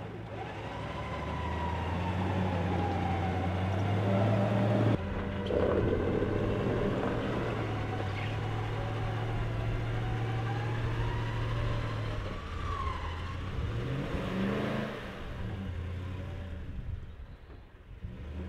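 Truck engine running and revving while a winch strains under load, pulling a stuck Toyota Tundra and its trailer out of mud. The sound changes abruptly about five seconds in, and the engine pitch rises briefly near the end.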